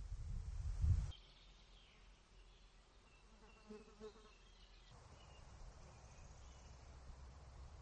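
Outdoor nature ambience. A loud low rumble runs for about a second and stops abruptly; after it come faint, scattered bird chirps and insects buzzing.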